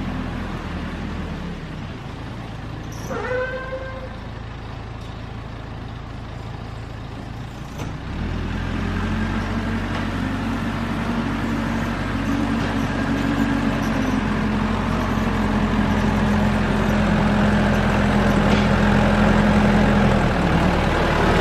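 Caterpillar backhoe's diesel engine running at low revs, then revving up about eight seconds in and running steadily under load. A brief high squeal sounds about three seconds in.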